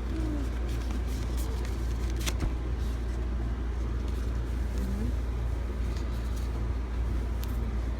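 Steady low rumble of background noise, with a few sharp clicks and light rustling from fingers and fingernails handling an album's plastic packaging.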